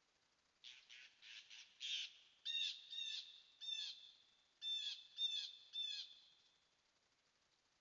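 Animal calls, most likely a bird: a quick run of five harsh calls, then six shorter, clearer calls that each rise and fall in pitch.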